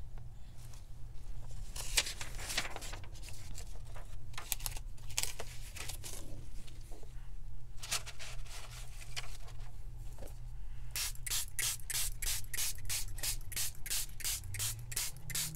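Hand trigger spray bottle spraying coffee dye through a stencil onto paper: a few scattered sprays, then a quick run of repeated trigger pulls, about three a second, over the last few seconds. A steady low hum runs underneath.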